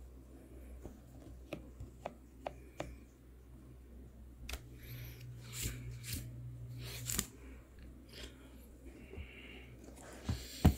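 A knit basketball sneaker, a Nike LeBron 20, being handled up close: a few light clicks and taps, soft rubbing and rustling about midway, and a sharper knock near the end.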